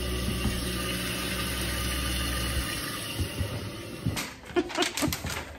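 Toilet tank refilling through its fill valve: a steady hiss of water with a low hum, which stops about two and a half seconds in. After a cut, a few clicks and knocks and a door.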